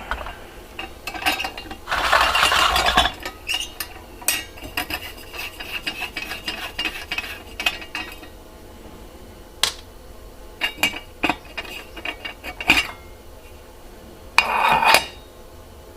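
Metal and glass parts of a vintage propane camping lantern being handled: scattered clinks and taps, with two longer scraping rubs, one about two seconds in and one near the end.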